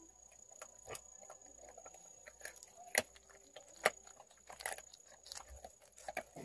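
Jindo puppy licking and mouthing a person's hand, making soft wet smacking sounds with scattered sharp clicks, the loudest about three and four seconds in.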